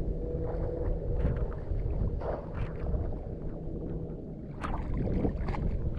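Someone wading through shallow floodwater in a harvested rice paddy: irregular sloshing, splashing steps, over a low rumble of wind on the microphone.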